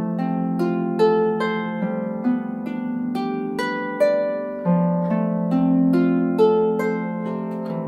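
Solo instrumental music: a gentle melody of plucked notes, each ringing and fading, about two a second over lower sustained notes.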